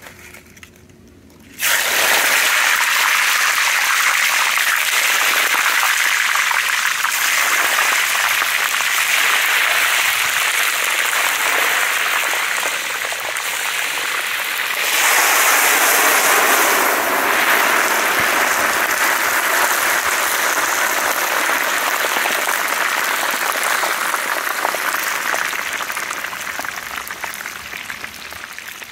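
Eggshells sizzling in hot oil in a large wok: a loud, steady hiss starts suddenly about a second and a half in as a plateful of shells goes in, surges again about halfway through when a second plateful is added, then slowly dies down near the end.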